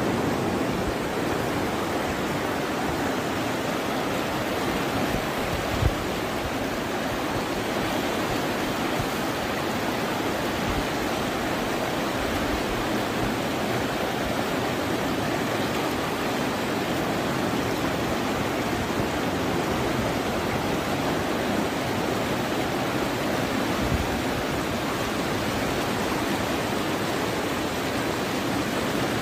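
Steady rushing of a muddy river in flood, a continuous deep rush of fast water. A brief thump sounds about six seconds in.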